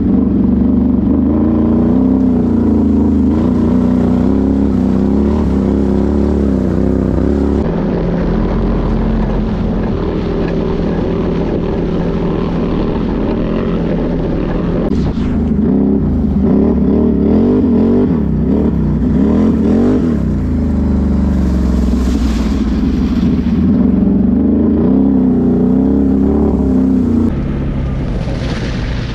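Can-Am Renegade X mr 1000R ATV's V-twin engine running hard and revving up and down as it ploughs through a flooded, muddy trail, with water splashing around the machine. It eases off near the end.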